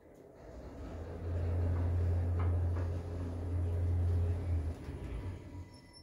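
ThyssenKrupp passenger lift car travelling, heard from inside the car: a low hum and rumble builds over the first second, holds steady for about three and a half seconds, then dies away.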